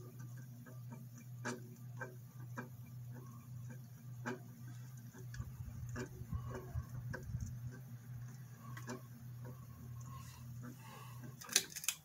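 Cheap mid-2000s ceiling fan running with a steady motor hum and irregular ticking and clicking, the noise of a worn fan with blades in poor shape. Near the end the pull-chain switch clicks loudly and the motor hum cuts out as the fan is switched off.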